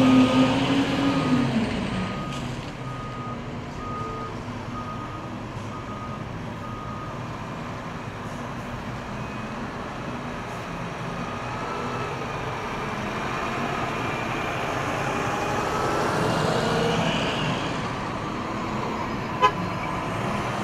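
Diesel garbage trucks running as they pull out in convoy, with a backup alarm beeping steadily for the first several seconds. The engine noise grows as a truck approaches near the end, and there is one sharp click shortly before the end.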